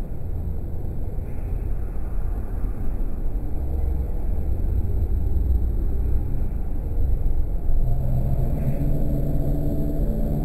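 Steady low rumble of background room noise at an aquarium viewing window, with a low steady hum and its overtones coming in near the end.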